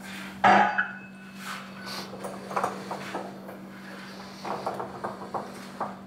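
Knocks and clatter of a refrigerator cabinet being handled: one loud thump about half a second in, then a series of lighter knocks and rattles. A steady low hum runs underneath.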